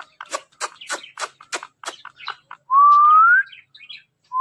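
A run of sharp clicks, about three a second, then a loud clear whistle from a ringneck parrot, holding steady and rising slightly in pitch at its end.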